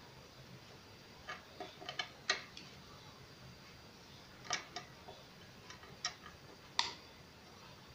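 Light clicks and taps of plastic and metal pump parts being handled and fitted together on a mini hand air pump: a quick run of clicks about two seconds in, then a few more single clicks later, the sharpest near the end.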